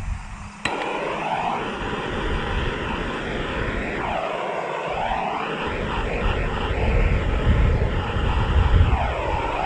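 Propane torch lighting with a click just under a second in, then a steady rushing hiss whose tone sweeps slowly up and down as the flame is moved, heating the end of a plastic water line to soften it for the barb fitting.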